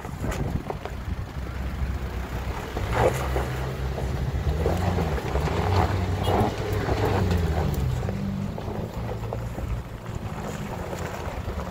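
Mazda pickup's engine pulling under load up a rutted dirt climb. The revs rise and fall several times in the middle as the truck works over the ruts.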